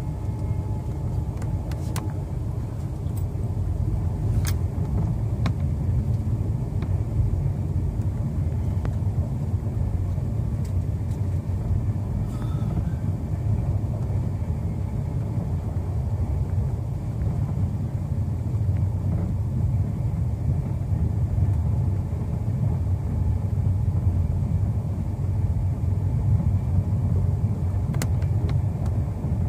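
Steady low rumble of a moving passenger train, heard from inside an air-conditioned coach, with a few faint clicks.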